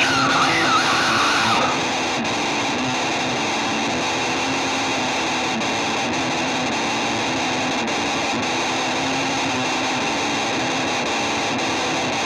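Rock music with a distorted electric guitar playing a dense, sustained part through effects, with no singing. A brighter wavering upper line stops about two seconds in, and the music runs on slightly quieter.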